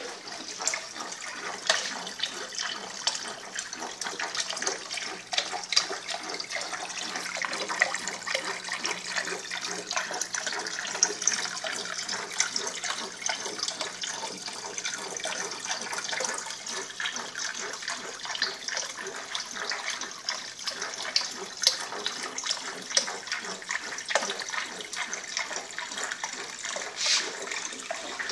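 Water from an aquarium submersible pump's outlet pipes splashing and trickling steadily into the tank, full of small crackles and bubbling. A faint low hum runs underneath.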